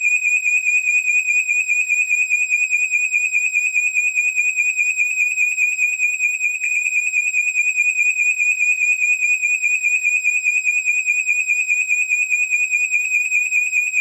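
Smoke alarm sounding one unbroken, shrill high-pitched tone with a rapid flutter.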